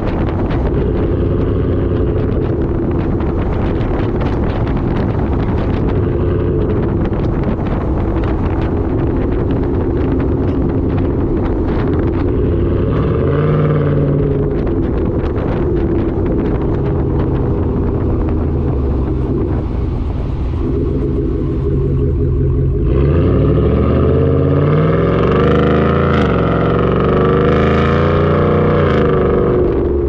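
Ford 5.0-litre Coyote V8 of a 2018 F-150 heard at the tailpipes through a Borla ATAK exhaust while driving. It holds a steady cruising drone, with a brief rise and fall in the middle. About two-thirds of the way in it pulls harder and louder, the note climbing, dipping at a gear shift, then climbing again.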